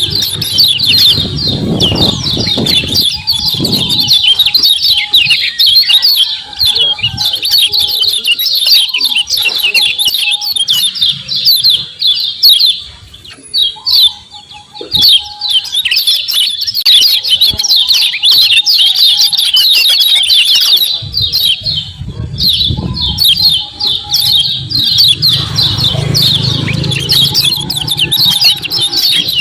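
Kecial kuning (a white-eye) giving fast, continuous 'ciak ciak' chattering calls, high and rapid. The calls thin out briefly about halfway through.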